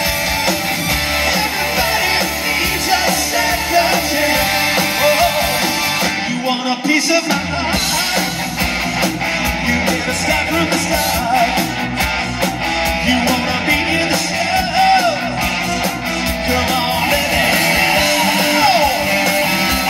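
Live rock band playing an 80s-style rock song: lead vocals over electric bass, drums and keyboards. About six seconds in the bass and cymbals drop out for a moment before the full band comes back in.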